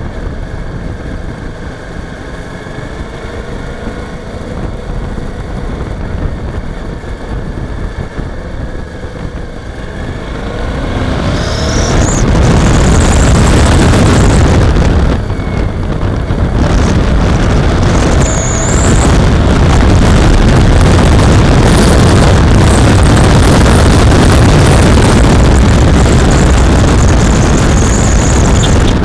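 Suzuki V-Strom 650's V-twin engine running at low speed, its pitch rising and falling, heard through a bike-mounted camera. About eleven seconds in, a loud rush of wind on the microphone rises and swamps it, easing briefly a few seconds later.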